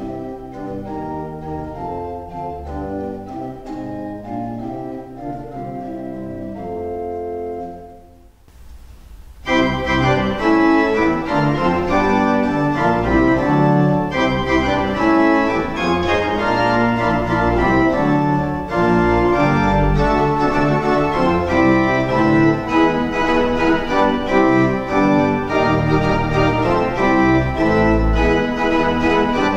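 Simon Pierce two-manual pipe organ playing. A softer passage of held notes ends about eight seconds in, the sound dies away for a moment, and then the next variation begins, louder and fuller, and carries on.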